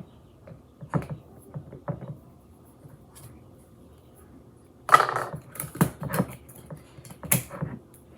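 Brown sugar being scooped, levelled and tipped into mixing bowls: light knocks and scrapes of measuring cup on bowl, with a short, louder gritty rush about five seconds in and a few more knocks after it.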